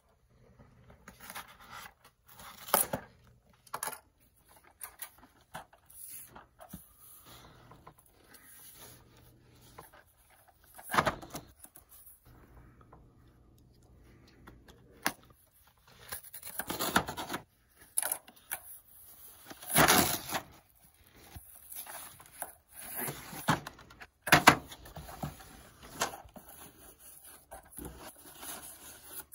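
A cardboard shipping box being cut and torn open by hand: irregular ripping and scraping of cardboard and packing tape, with a few sharp knocks as the packaging is handled on a counter.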